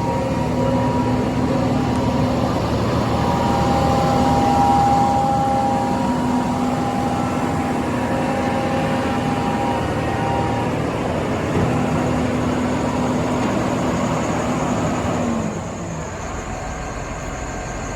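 Gradall XL4100 wheel excavator's Mercedes-Benz diesel engine running at raised speed with a steady whine, then dropping to a lower, quieter idle about fifteen seconds in.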